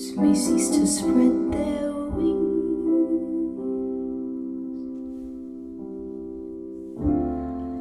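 Slow piano music: a few chords struck in the first couple of seconds, then one long held chord slowly fading, and a new chord struck about seven seconds in.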